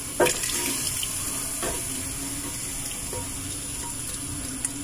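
Beef skin pieces and their cooking liquid pouring from an aluminium pot into a pot of broth, a steady splashing pour with a few sharp knocks, the loudest just after the start.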